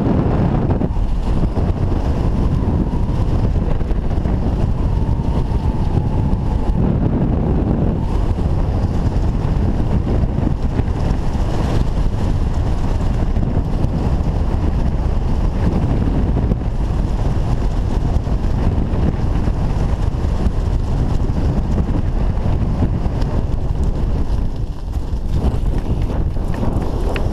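Wind buffeting a body-mounted camera's microphone during a descent under a parachute canopy: a loud, steady low rumble of air rushing past.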